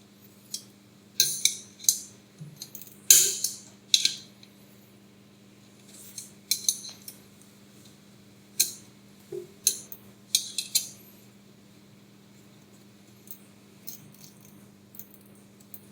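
Small metal parts and hand tools clicking and clinking as hardware is fitted on a machine's Z-axis assembly: irregular sharp clicks, busiest in the first few seconds and again from about six to eleven seconds in, over a faint steady hum.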